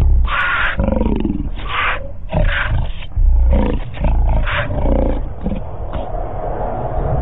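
Lions giving a series of short, harsh calls in quick succession while feeding on a kill, which is typical of lions squabbling at a carcass. The calls stop about six seconds in, leaving a steady background hum.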